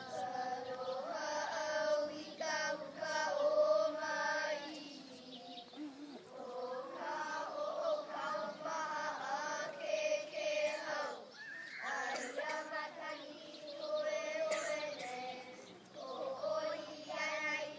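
A group of children singing together in unison with long held notes: a song for a hula dance.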